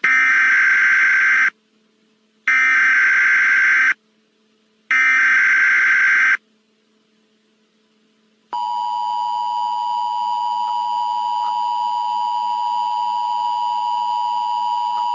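Emergency Alert System SAME header: three bursts of warbling digital data tones, each about a second and a half long with a second's gap between them. From about eight and a half seconds in, the steady two-tone EAS attention signal sounds, which announces that an alert message follows.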